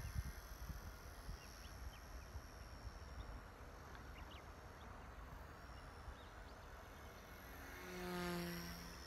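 A K110 micro RC helicopter flying inverted circles, its electric motor and rotors a faint whine while it is far off. Near the end it passes close and its buzzing rotor hum swells briefly, then fades.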